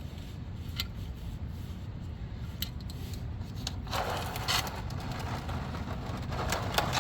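Scraping and handling noises of oil-change work under a car, with scattered small clicks, a rough scrape about four seconds in and another near the end, over a steady low rumble.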